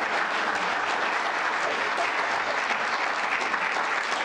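Audience applauding: steady clapping from a roomful of people.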